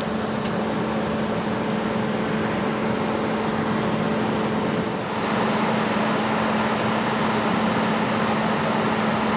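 A car running at a steady speed: a steady engine drone under road and wind noise, growing louder and brighter about five seconds in.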